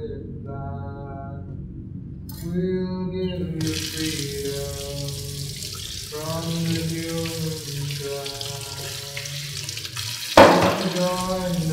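Chanting in long held notes over a low drone, joined a few seconds in by the steady hiss of running water like a tap. A single sharp hit sounds near the end.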